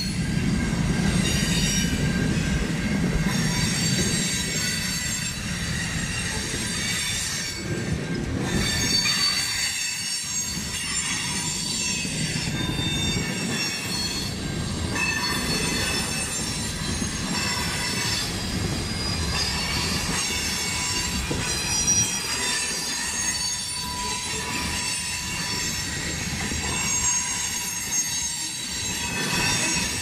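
Freight cars of a CN freight train rolling steadily past: wheels rumbling on the rails, with many high-pitched steel wheel squeals held over the top.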